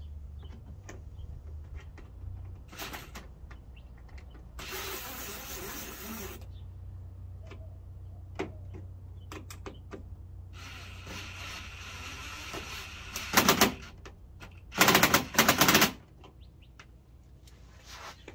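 Cordless drill-driver driving screws up into a car's plastic front lip spoiler, in several runs of a second or two each. The last two runs, near the end, are much the loudest, with a fast rattle.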